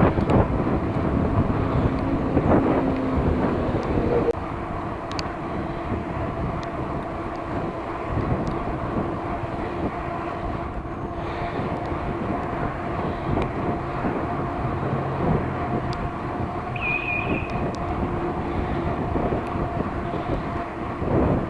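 Riding noise of a bicycle picked up by a chest-mounted camera: steady wind and road rumble with a faint hum, louder in the first four seconds, and a brief high squeak about seventeen seconds in.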